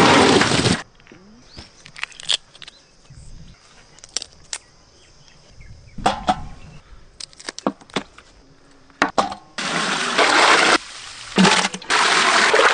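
Water poured from a pot into a metal basin, a loud rushing splash that comes briefly at the start and again for the last three seconds. In the quieter stretch between there are scattered small knocks and splashes as prawns are dropped into a bowl of water.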